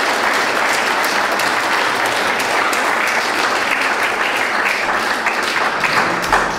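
A roomful of people applauding: steady, dense clapping that thins out just before the end.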